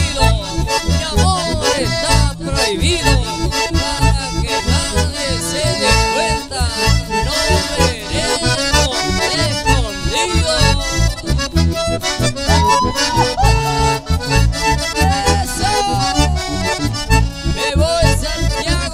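Live band music, an instrumental passage: button accordion carrying a quick, ornamented melody over strummed guitar and a steady pulsing bass beat.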